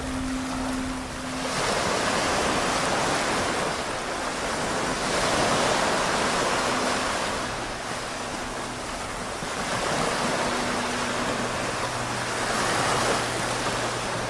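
Sea waves washing up on a beach, the surf swelling and falling back every three or four seconds. A faint steady low hum runs underneath and strengthens near the end.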